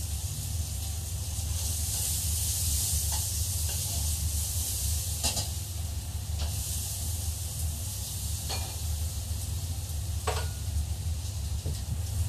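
Chicken pieces frying in a pan on a gas hob, a steady sizzling hiss. A few scattered clicks and knocks come from the pan as the food is stirred, over a steady low hum.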